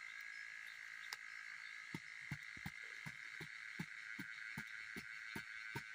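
Steady high drone of forest insects. From about two seconds in it is joined by a quick run of short low pulses, two to three a second.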